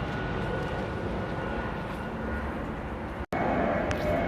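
Jet airliner on approach to land passing overhead: a steady engine rumble with a faint high whine, breaking off abruptly about three seconds in, after which a different steady background noise follows.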